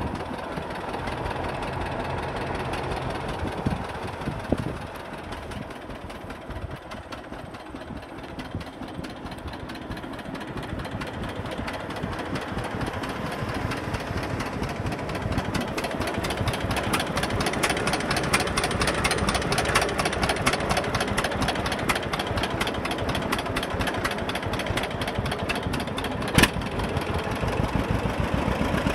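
John Deere 60 two-cylinder tractor engine running at idle with an even pulsing beat, growing gradually louder through the second half. A single sharp click near the end.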